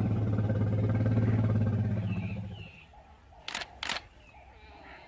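A deep, drawn-out elephant rumble that fades out after about two and a half seconds, then two sharp SLR camera shutter clicks about a third of a second apart.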